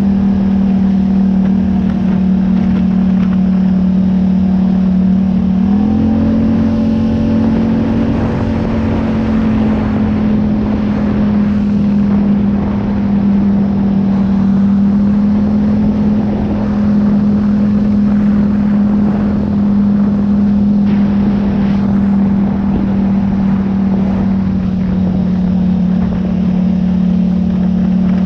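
A vehicle engine running at a steady speed, with its note stepping up slightly about six seconds in and then holding.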